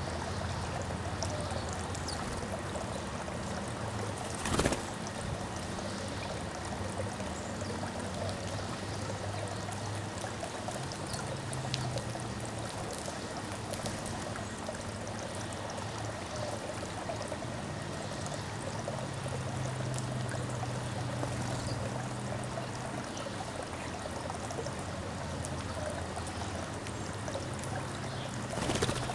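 Steady trickling, running water, with a low hum underneath. A brief thump comes about five seconds in and another near the end.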